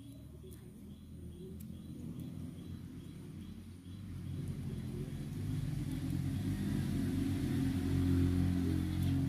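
A motor vehicle engine running, growing steadily louder over several seconds as it comes closer.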